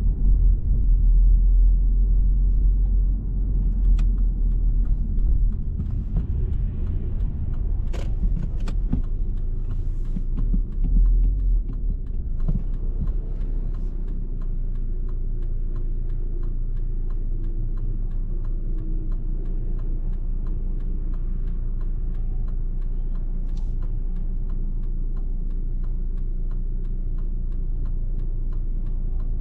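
Low rumble of a car driving at speed, road and engine noise. It is uneven with a few sharp clicks through the first twelve seconds or so, then settles into an even drone.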